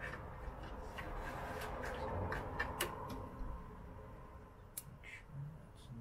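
Faint handling noise: a few light, scattered clicks and rustles from a wire being handled.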